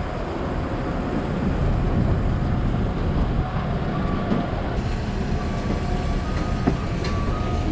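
Steady low rumble of airport apron machinery around a parked Boeing 777-300ER, with wind on the microphone. A faint steady whine joins about halfway through, and a few light footfalls sound on the metal boarding stairs near the end.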